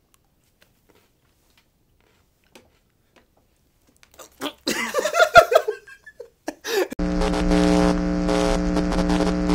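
Near silence, then about four and a half seconds in two men let out loud, wordless yells and laughter. About seven seconds in, end-card music starts: a steady, held chord over a hiss.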